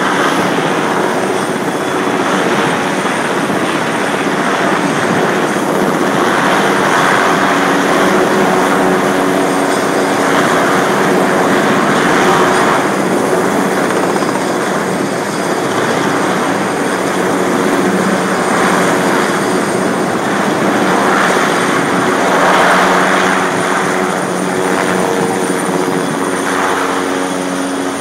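Large lift helicopter hovering close by with a slung load, then pulling away overhead: loud, steady rotor and engine noise that swells several times and eases slightly near the end.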